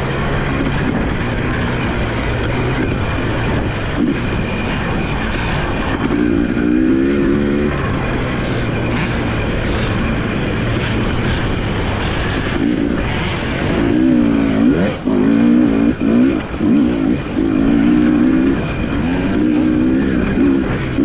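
Off-road motorcycle engines revving up and down through the gears as dirt bikes ride past. There are several bursts of revving, with the busiest stretch in the second half.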